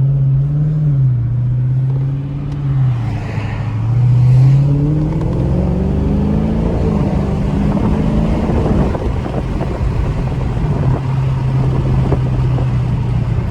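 Dodge Charger Scat Pack's 392 (6.4-litre) HEMI V8 pulling away under throttle: the engine note rises for several seconds, drops back about nine seconds in as the revs fall, then runs steady.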